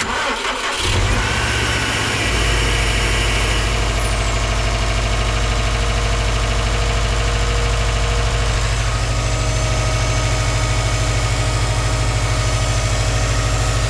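Subaru WRX STI turbocharged flat-four boxer engine starting up. The revs are raised for about two seconds, then settle into a steady idle. The newly installed AC compressor is not engaged, because the system holds no refrigerant.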